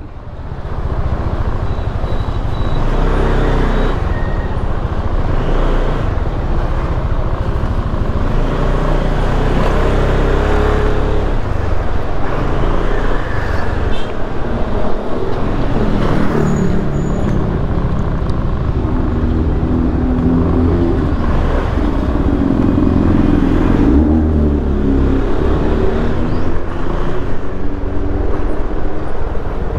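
Kymco Xciting S400i scooter's single-cylinder engine running at low speed, its pitch rising and falling with the throttle, over steady road and wind noise.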